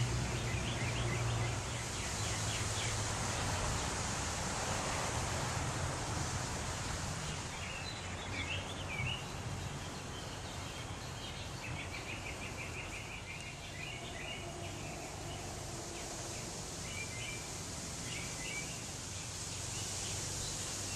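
Songbirds chirping now and then, with a quick trill about halfway through, over the steady hiss of a breeze in the trees.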